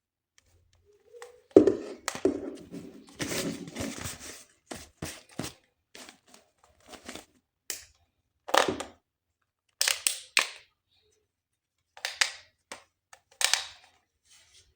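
Toy packaging being handled and opened by hand: a sharp knock about a second and a half in, then a few seconds of rustling and tearing, followed by several short separate bursts of crinkling.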